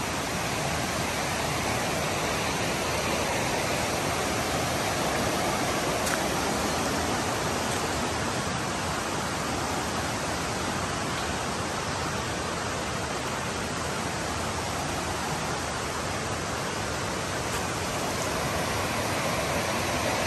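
A rocky river rushing through white-water rapids, a steady, even rush of water.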